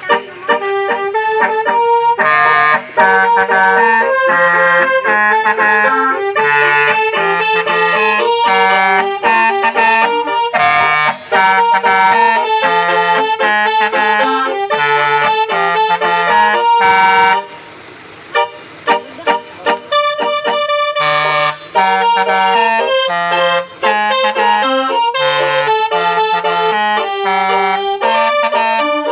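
A reedy, accordion-like melody over a moving bass line, playing almost continuously, with a short break about two-thirds of the way through and a few brief gaps after it.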